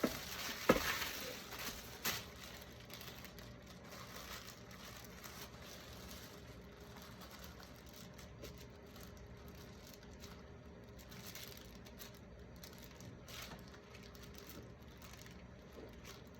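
Faint handling sounds of hands shaping and twisting wheat dough: a few light taps on the work surface in the first two seconds, then soft, scattered rustling.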